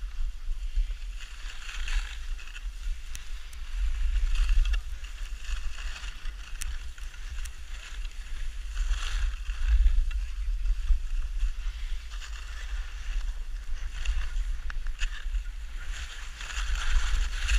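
Wind buffeting the microphone of a camera carried by a downhill skier, a constant low rumble, over the hiss of skis carving and scraping on packed snow, which swells and fades with each turn.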